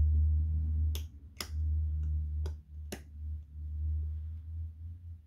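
Small sharp metallic clicks, four of them, from a watchmaker's screwdriver working the screws of a 1950s Bucherer watch movement to make it sit more firmly in its case, over a low rumble of hands handling the watch.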